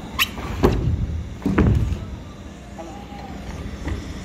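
Wind buffeting the microphone, with a few sharp knocks in the first two seconds.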